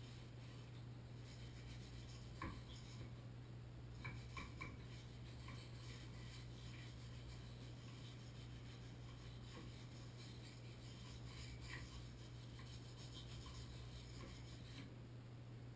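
Faint scraping and rubbing of a hand tool working inside a Moen Posi-Temp shower valve body, with a few light clicks, a cluster of them about four seconds in.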